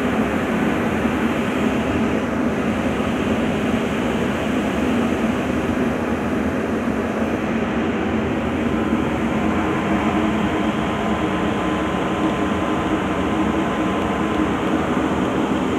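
Steady, unbroken drone of a car ferry's engines and onboard machinery, heard from the open deck.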